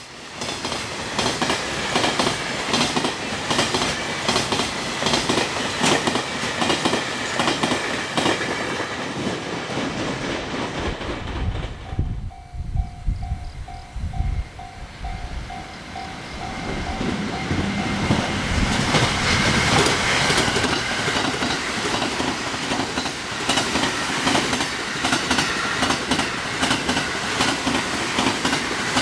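Freight train wheels running over rail joints, a dense rapid clickety-clack. About halfway through the clatter dies down and a level-crossing warning bell is heard ringing about twice a second. A few seconds later the rail-joint clatter of a passing train builds up again.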